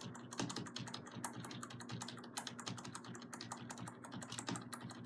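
Computer keyboard keys being pressed rapidly and repeatedly, a fast, uneven run of clicks, several a second, over a faint steady hum.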